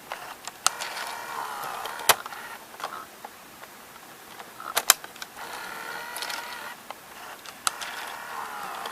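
Small loading motor and gear train of a Sony CCD-TR70 8mm camcorder's tape mechanism whirring in two runs, its whine wavering in pitch. There are several sharp clicks in between.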